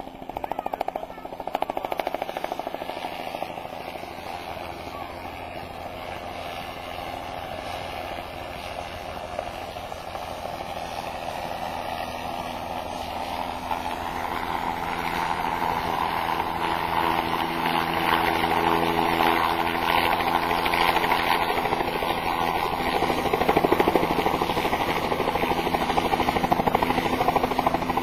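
Air ambulance helicopter on final approach and landing: the rapid beat of its rotor, over a steady engine hum, grows steadily louder as it comes in low and settles near the ground.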